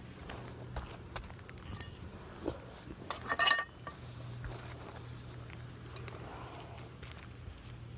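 Faint scattered clicks and handling sounds, then a quick cluster of sharp, ringing clinks about three and a half seconds in.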